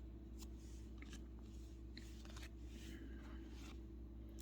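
Faint flicks and slides of trading cards being handled and turned one by one, about two a second, over a low steady room hum.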